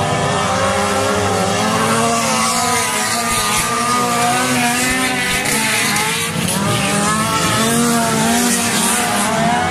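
Several dirt-track stock car engines racing at once, each revving up and down so that their pitches rise and fall over one another.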